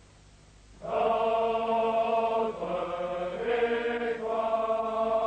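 A chorus of French Foreign Legion soldiers' men's voices singing a regimental marching song in unison, starting about a second in with long, drawn-out notes that change pitch every second or so.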